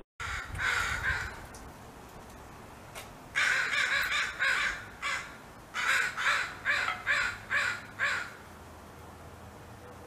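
Crows cawing. One or two harsh caws come near the start, then two rapid runs of caws follow, the second about seven caws long.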